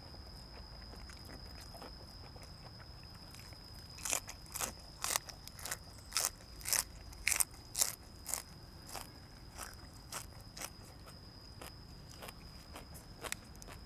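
A person chewing crunchy food with the mouth close to the microphone. The crunches start about four seconds in, come at about two a second, and are loudest at first, then fade to softer chews.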